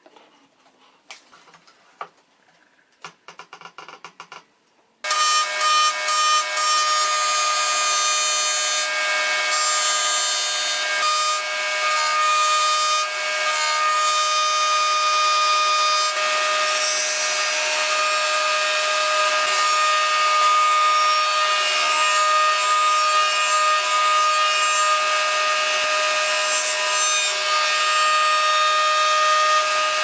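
A few faint taps from hand work, then about five seconds in a table-mounted router starts up. It runs with a steady high whine as a bearing-guided bit trims the edge of a laminated mahogany and maple plane-body part.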